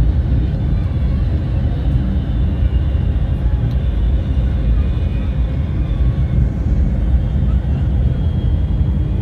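Steady low rumble of a motor vehicle under way, loud and unbroken, with no single event standing out.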